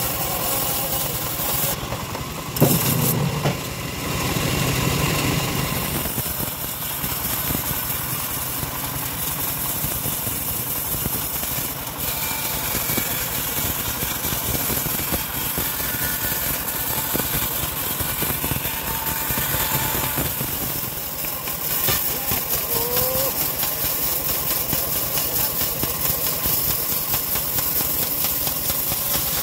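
Homemade log bandsaw mill running steadily, its blade sawing through a log. One sharp, loud knock about two and a half seconds in.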